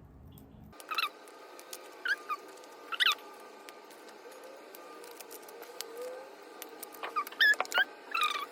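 Short, high-pitched squeaking calls from a small animal, a few spaced out and then a quick cluster of them near the end, with faint scattered clicks.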